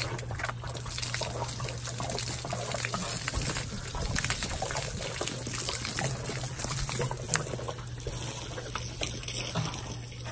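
Water running and splashing steadily, a continuous trickling and spattering that keeps going without a break.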